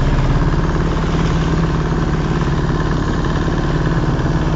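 A small boat's motor running steadily, with water rushing and splashing along the hull as the boat moves.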